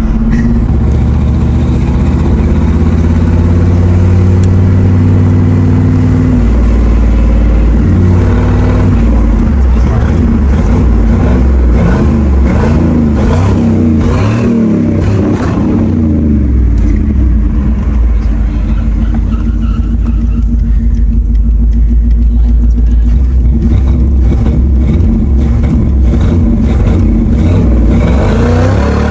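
1991 GMC Sierra pickup's engine pulling under way, its pitch stepping and rising and falling as it is revved and shifted through the gears.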